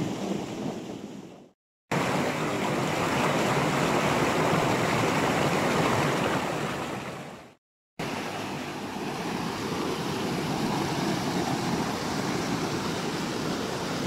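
Water rushing steadily over rocks at a small waterfall and cascading stream, pouring into a plunge pool. The rush fades out and cuts back in twice, about two and eight seconds in.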